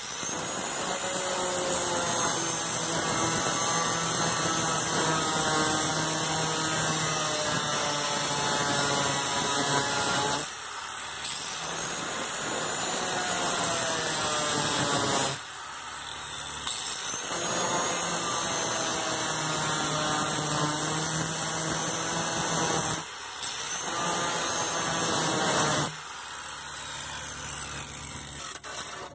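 Small electric cut-off tool with a thin abrasive disc cutting shallow slots in the sheet-steel floor pan. Its whine sags in pitch as the disc bites into the metal, with a few short lulls where the blade eases off.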